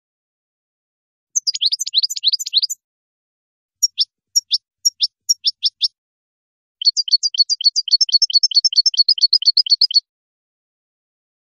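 European goldfinch singing: a quick twittering jumble, then a phrase of separate high notes, then a fast, even trill of about ten notes a second lasting about three seconds, which stops abruptly.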